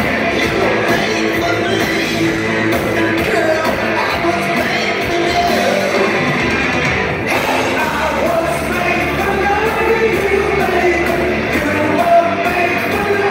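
Live hard-rock band playing: a male lead voice sings over electric guitars, loud and steady throughout.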